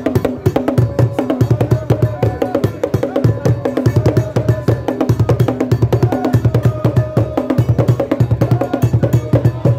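Traditional Ghanaian drums beaten with curved wooden sticks, playing a fast, steady rhythm of dense strikes with deep beats recurring in clusters.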